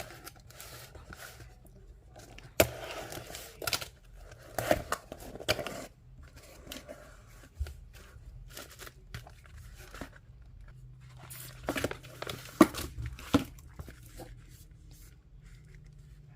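Packaging being handled and torn open: irregular crinkling, rustling and sharp crackles, with the loudest snaps about two and a half seconds in and near twelve and a half seconds in.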